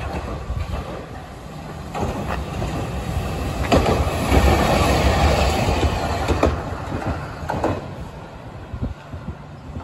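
Hankai Tramway 701-type tram running past on its track: the rumble of its wheels builds to a peak about four to six seconds in, with a few sharp clacks, then fades as it moves away.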